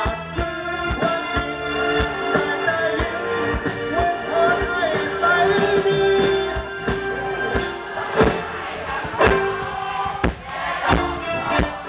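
Live rock band playing through a stage PA: electric guitar, bass guitar and a drum kit keeping a steady beat, with a man singing into a handheld microphone over it.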